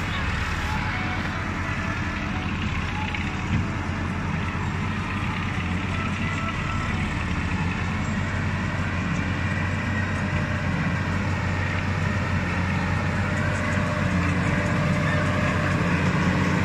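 Massey Ferguson 6485 Dyna-6 tractor's six-cylinder diesel engine running steadily under load as it pulls a working baler through the windrows, getting a little louder near the end as it comes close.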